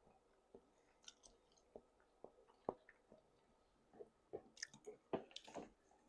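A person chewing food close to the microphone: quiet wet mouth clicks and smacks, a few spaced out at first, then a quicker run of them about four seconds in.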